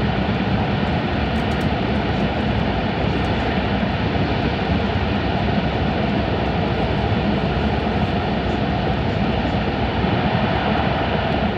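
Steady rushing noise of an E5 series Shinkansen running at speed through a tunnel, heard from inside the passenger car.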